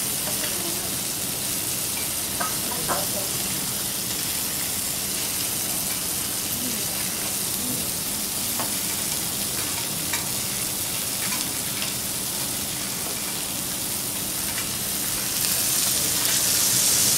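Chicken and pork frying on a steel teppanyaki griddle beside melting butter: a steady sizzle with a few faint clicks. The sizzle grows louder near the end as the meat is worked with a spatula and fork.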